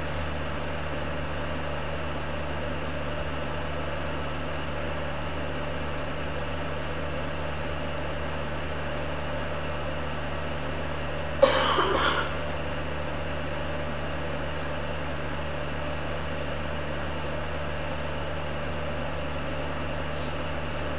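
Steady low hum and hiss, with no music or voices. About eleven seconds in, one brief sharp sound stands out, the loudest thing here, gone within a second.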